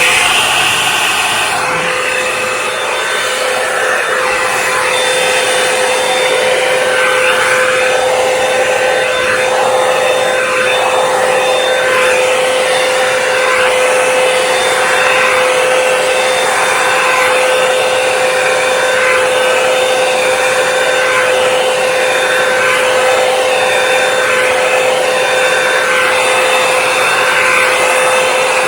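Revlon One-Step hair dryer brush running continuously on high: air rushing, with a steady motor whine.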